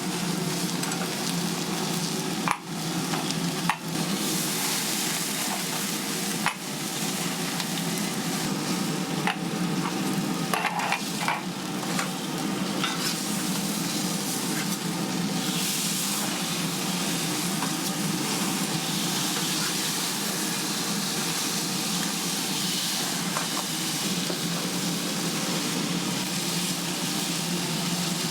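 Food frying with a steady sizzle. A few sharp knocks of utensils come in the first seconds, and light metallic clinks follow around ten seconds in.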